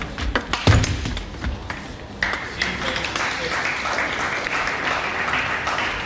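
Table tennis rally: sharp clicks of the celluloid ball off bats and table, with a heavy player's foot stamp about a second in. Then audience applause sets in about two seconds in as the point ends.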